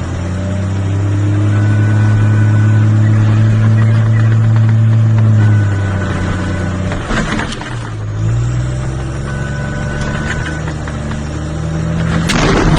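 A heavy vehicle engine running loud and steady, shifting down in pitch about five seconds in. Sharp knocks or clatters come around seven seconds in and again near the end.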